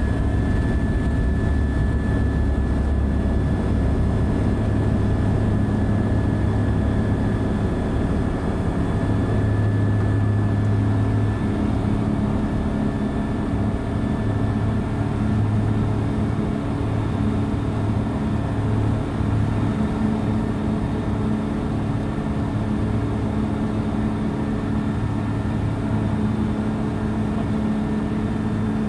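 Microlight aircraft's engine and propeller running at takeoff power, a loud steady drone heard inside the cockpit.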